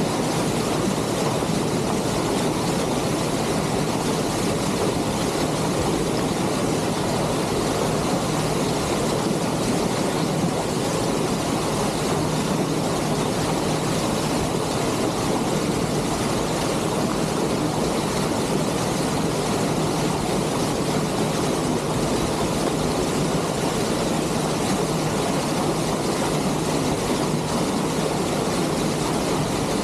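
Lake passenger ship under way: a steady engine hum under a constant rush of water along the bow and wind.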